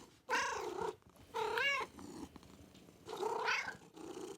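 A domestic cat meowing three times, each call about half a second long and rising then falling in pitch. A low steady purr-like sound begins near the end.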